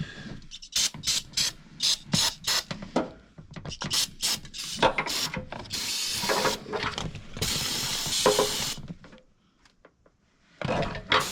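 Rapid clicking and rattling as an aerosol can of carburetor cleaner is handled. Then two sprays hiss out, the first about a second long and the second about a second and a half.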